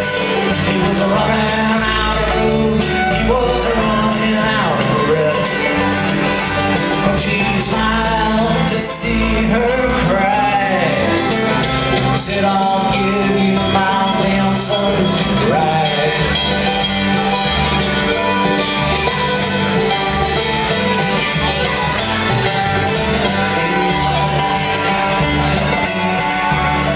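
Bluegrass band playing live: banjo, acoustic guitar, mandolin and fiddle together, with sliding notes standing out in the first half.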